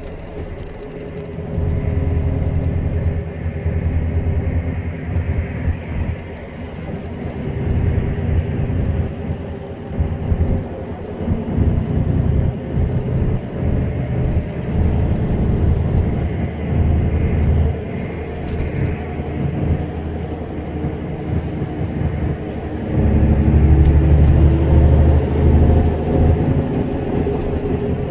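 Road noise from a car driving at speed on an expressway: a continuous low rumble of tyres and engine that swells and eases, loudest a little before the end.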